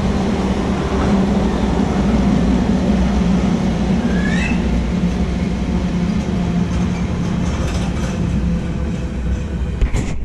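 Container freight train's flat wagons rolling past on the rails with a steady, loud rumble. About halfway through there is a brief rising wheel squeal, and there is a sharp clack just before the end.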